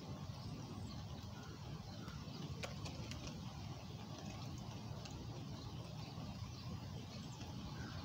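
Faint bird chirps over a steady low rumble of outdoor background noise, with two or three sharp clicks a little under halfway through.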